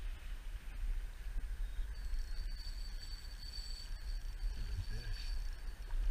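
Wind rumbling on the camera microphone, with a faint steady hiss. In the middle there is a thin, steady high whine for about three seconds.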